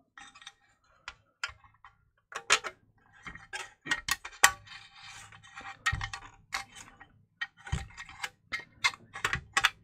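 Irregular plastic clicks, taps and knocks from an LED floodlight's white front panel and housing being handled and worked loose by hand, with a short stretch of scraping about halfway through.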